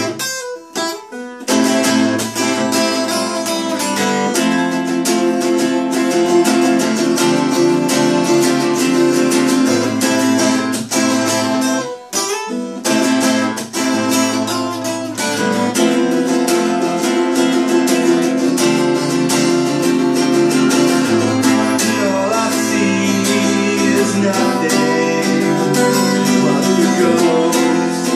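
Acoustic guitar and a long-necked, pear-shaped plucked string instrument strumming chords together in an acoustic indie-punk song. The playing breaks off briefly near the start and again about twelve seconds in.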